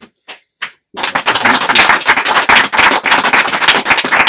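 Audience applauding: a few scattered claps, then, about a second in, dense applause.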